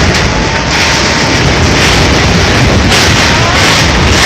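Strong storm wind gusting and buffeting the microphone: a loud, continuous roar of noise with a heavy low rumble that swells and eases in waves.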